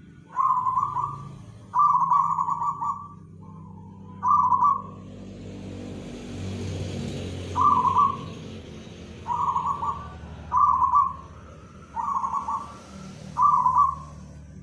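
Zebra dove (perkutut), a contest-champion bird, cooing: about eight short rolling coo phrases, the first two longer, with a gap in the middle. A low rumble and hiss swell during that gap.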